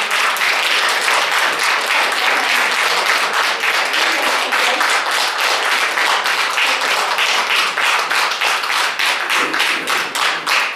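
A small audience applauding steadily, with many hands clapping together; near the end the individual claps stand out more distinctly.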